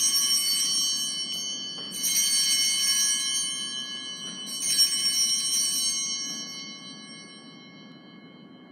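Altar bells shaken three times, each peal ringing on and fading away, marking the elevation of the consecrated host.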